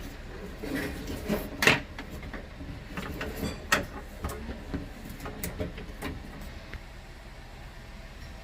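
A series of light clicks and knocks from handling things, irregular, the loudest about two seconds in, thinning out near the end, over a low steady hum.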